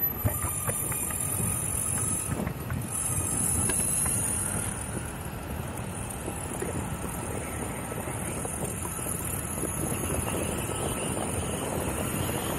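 Electric skateboard with hub motors and urethane wheel sleeves riding on pavement: steady wheel rumble and wind on the microphone, with a steady high whine and a few clicks in the first few seconds.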